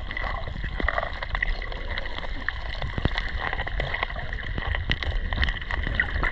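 Sea water heard through a submerged action camera's microphone: a muffled low rumble with a dense crackle of small clicks and ticks. There is a louder click about three seconds in, and a sharp knock near the end.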